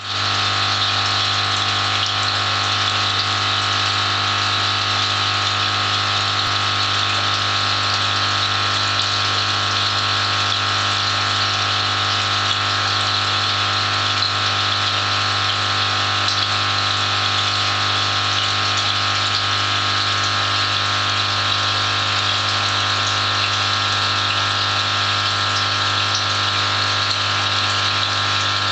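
Aquarium pump running, a steady hum with a constant hiss of moving water.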